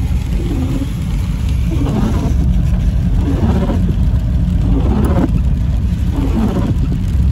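Steady low road and engine rumble inside a moving car's cabin, with the windshield wipers sweeping back and forth about every second and a half.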